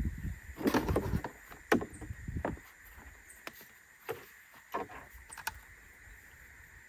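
Handling noise of a salvaged car starter motor and its cable on a car battery: a burst of knocks and metal clatter in the first couple of seconds, then a few scattered clicks.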